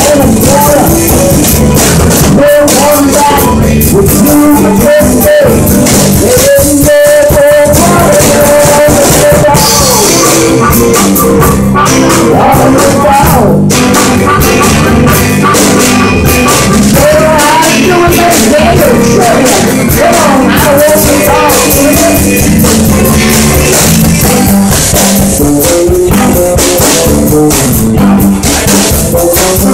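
Live band playing an upbeat blues-rock number: electric guitars and a drum kit, with a lead line of long held, bending notes that fits a harmonica played into the microphone.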